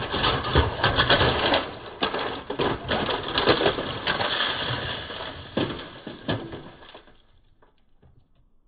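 Dense mechanical rattling and clattering, packed with sharp knocks, that dies away about seven seconds in.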